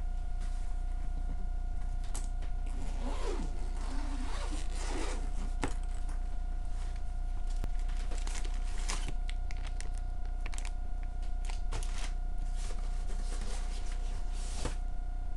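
The zipper of a fabric laptop carrying bag is drawn open in raspy strokes, followed by scattered clicks and rustling of paper and plastic wrapping as the bag's contents are handled. A steady electrical hum runs underneath.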